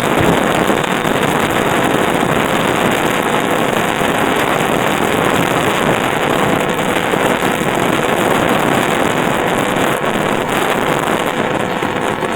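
Bombardier MITRAC IGBT VVVF traction inverter and motor of a London Underground 2009 Tube Stock, picked up electromagnetically by a telephone pickup coil: a loud, dense, steady electrical noise from the PWM switching, with a faint steady tone underneath. The level drops near the end.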